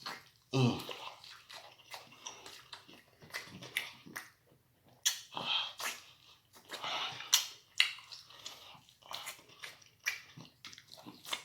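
Close-up chewing and lip smacking while eating BBQ ribs: irregular wet clicks and smacks with short pauses between bites.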